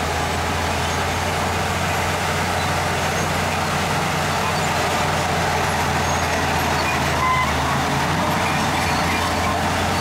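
Heavy diesel earthmoving machinery running steadily under load, a constant low engine drone, with a short high squeak a little past seven seconds.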